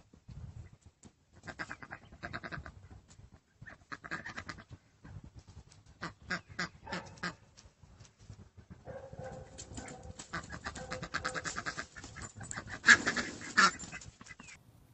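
Domestic ducks calling in bunches of harsh, rapidly repeated quacks, loudest near the end.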